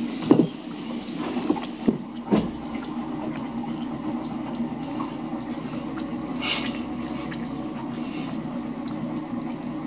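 Small boat's engine idling steadily, with three sharp knocks in the first two and a half seconds as driftwood logs are dropped onto the boat.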